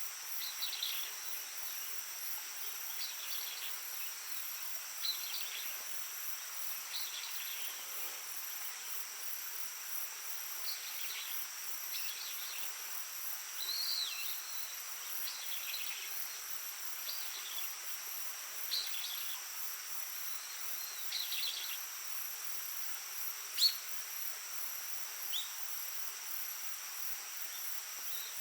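Insects chirring steadily in high, unbroken tones, with short bird calls scattered through and a gentle stream babbling underneath. One short, sharp sound stands out about three-quarters of the way through.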